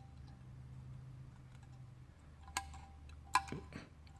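Faint light clicks and taps of small repair tools and phone parts being handled, with two sharper clicks in the second half, over a low steady hum.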